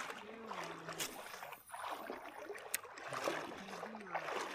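Running creek water, with faint, distant talking over it.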